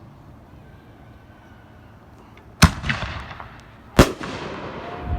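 Two fireworks going off, sharp bangs about a second and a half apart, each trailing off in a long echoing tail.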